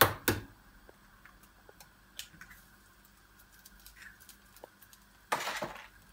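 An egg knocked twice against the rim of a frying pan, two sharp clicks right at the start, then a few small clicks and a brief noisy rush about five seconds in as the egg drops into the hot pan.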